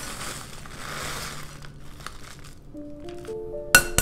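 A rustling pour as grated cheese drops into a glass mixing bowl, dying away after about two seconds. Background music with held notes comes in after that, and two sharp clicks sound near the end, the first the loudest.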